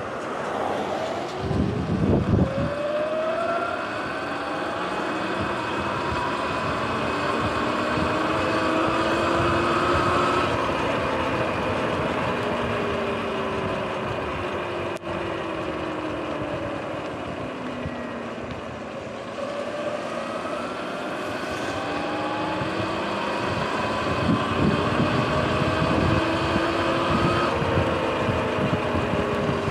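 Sur-Ron X electric dirt bike's motor whining in pitch with road speed: rising as it speeds up, falling after about ten seconds as it slows, then rising again, over the hiss of tyres on a wet road. A gust of wind buffets the microphone about two seconds in.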